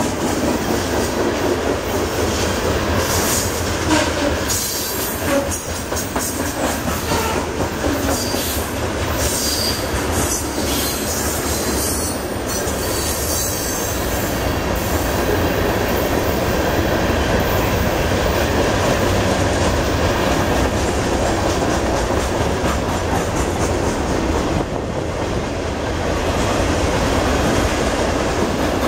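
Freight train cars rolling past close by: a steady rumble of steel wheels on rail, with wheels clicking over the rail joints, more often in the first half.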